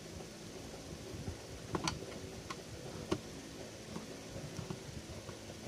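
Small precision screwdriver working screws out of a toy pistol: a few light, sharp clicks spread through the middle, the sharpest about two seconds in, over a low steady room noise.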